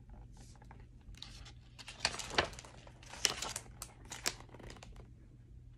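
A picture book's paper page being turned by hand: soft rustling and crinkling, with a few sharper crackles in the middle.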